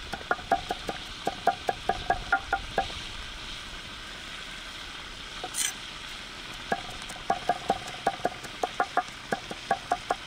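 Meat and onions sizzling in a pan while a metal spatula stirs them, knocking against the pan about four or five times a second. The knocking stops for about four seconds in the middle and then starts again, with the sizzle running underneath.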